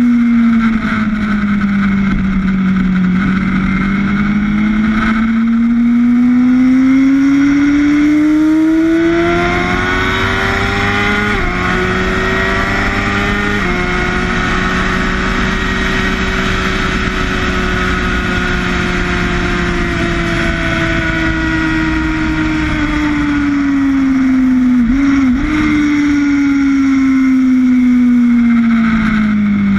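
Sportbike engine heard on board at track speed over a steady rush of wind. The engine note drops, then climbs for several seconds with abrupt steps at gear changes, holds high on a long fast run and slowly eases, and falls away near the end as the bike slows.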